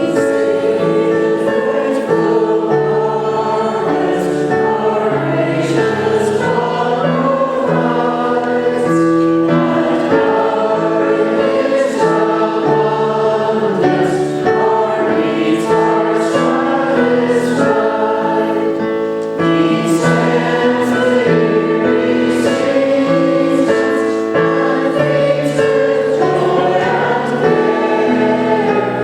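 Church congregation singing a hymn together, accompanied by a keyboard.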